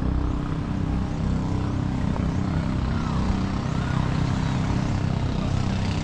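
A motor engine running steadily at an even speed, a low drone that holds constant.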